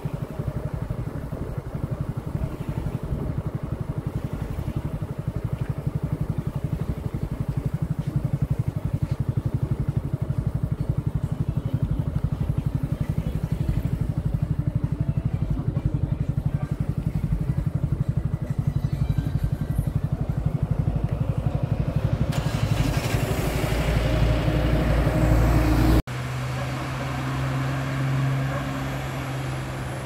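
A small motor engine running steadily, with a rushing noise building up near the end before an abrupt cut to a steadier, lower engine hum.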